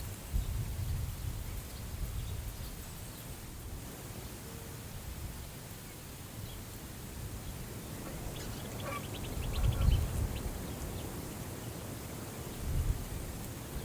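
Prairie wind gusting against the microphone with a low rumble that swells about ten seconds in and again near the end. A little past eight seconds a bird gives a brief, rapid chattering call.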